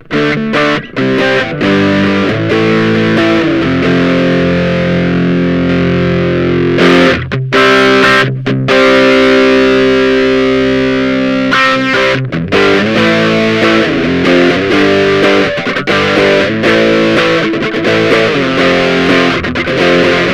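Ibanez GAX30 electric guitar played through a high-gain overdrive pedal, giving a distorted tone. It plays chords, some held and ringing for a couple of seconds, with a few brief stops in the middle, then choppy rhythmic riffing in the second half.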